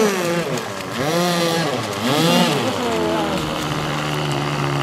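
Voices, then from about three and a half seconds in a boat engine running with a steady, even hum.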